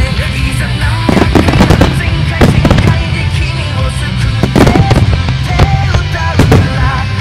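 Aerial fireworks shells bursting in a rapid salvo, a loud bang every second or two, over music playing alongside the display.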